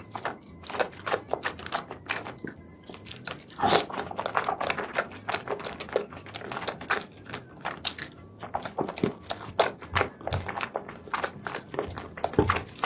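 Close-miked wet chewing and slurping of seafood in thick spicy sauce, a dense run of quick mouth clicks and smacks.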